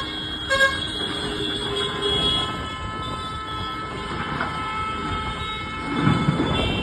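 Vehicle horn tooting briefly about half a second in, over a steady street din with other held horn tones; the low noise swells near the end.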